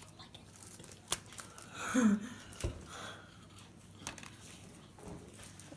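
Basketball trading cards being handled and flipped through by hand: soft crinkling and shuffling with a few light clicks. A brief vocal sound comes about two seconds in.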